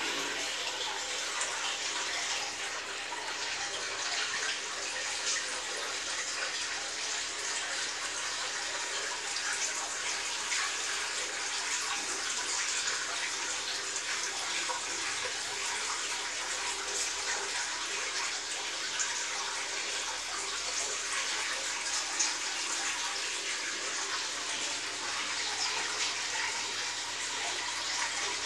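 Steady rush of splashing, bubbling water moving in a fish tank, with a faint steady hum underneath.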